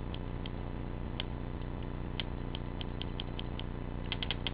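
Vibe electronic speedball paintball marker, switched on but without air, clicking as its sticking double trigger is pulled. The clicks are single and spaced apart at first, then come in a quick burst of about ten near the end.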